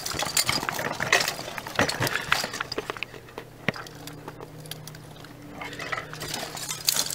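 Dry vines and brush crackling and rustling as they are brushed aside, a run of irregular sharp clicks that thins out midway and returns near the end, over a faint steady low hum.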